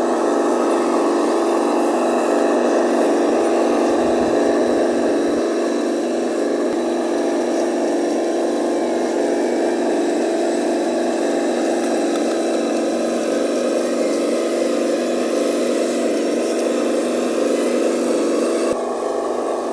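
Radio-controlled toy truck running with a steady mechanical hum. The hum's tone shifts slightly near the end.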